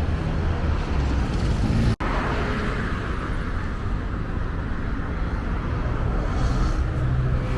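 Road traffic noise: a steady wash of vehicles passing on a busy expressway, with a brief sudden dropout about two seconds in.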